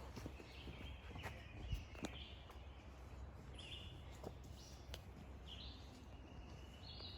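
Faint woodland birds calling: short, high chirps repeating every second or so over a quiet outdoor background.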